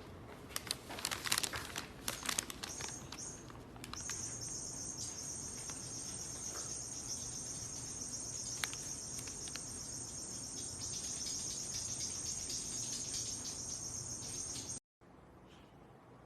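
A steady high-pitched insect chorus comes in about four seconds in and cuts off suddenly near the end, after a few seconds of clicks and rustling.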